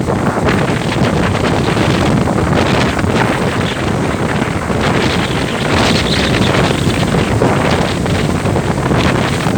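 Strong wind buffeting the microphone on a moving ferry, a loud continuous rumble that swells and eases in gusts. The ferry's engine and water may lie under it but do not stand out.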